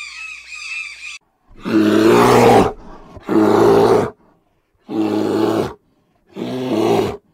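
A bird's quick run of squawking calls for about the first second, then four loud, deep roars, each about a second long and spaced about a second and a half apart, from a large animal.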